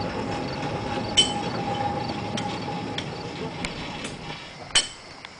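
1926 Whitcomb storage battery locomotive and steel-wheeled mine cars rolling on narrow-gauge rail: a steady rumble with a faint electric motor whine, broken by sharp metallic clinks and clanks. The rumble and whine die down after about four seconds, and the loudest clank comes near the end.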